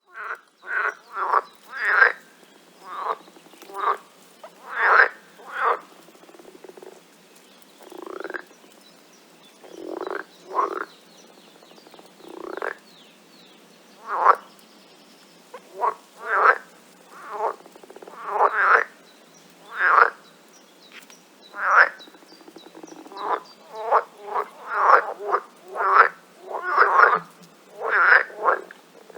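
Frogs croaking: many short calls, irregularly spaced and sometimes overlapping, thinning out for a few seconds in the middle with some calls sliding up in pitch, then coming thick and fast toward the end.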